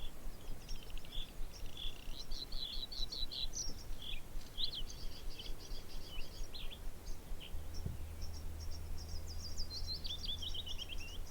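Male bluethroat singing: a varied, continuous song of quick chirps, trills and buzzy notes, with a run of notes stepping down in pitch near the end.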